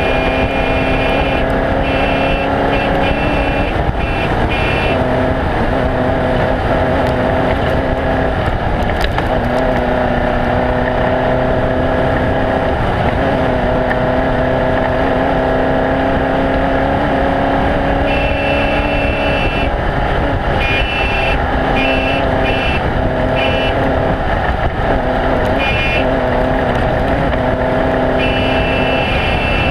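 Off-road race vehicle engine running hard with heavy rumble and road noise, loud and steady. Its tone breaks off and picks up again several times, as with shifts or lifts of the throttle.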